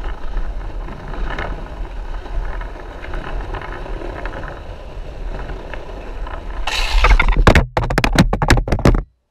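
Longboard wheels rolling steadily on a concrete garage floor, a constant rumble with wind buffeting the microphone. Near the end a louder rush, then a rapid string of sharp knocks and clatter before the sound cuts off.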